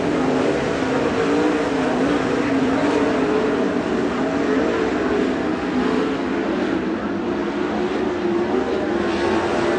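Several 410 sprint cars racing on a dirt oval, their 410-cubic-inch V8 engines running at high revs, the pitch rising and falling as the cars go through the corners.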